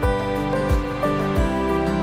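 Soft instrumental background music with a steady low beat about every two-thirds of a second.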